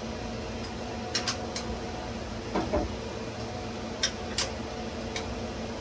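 Light metallic clicks and clinks of a steel wedge fixture vise and a hand tool being handled: three quick ticks, a duller scraping clunk in the middle, then three more ticks. A steady hum runs underneath.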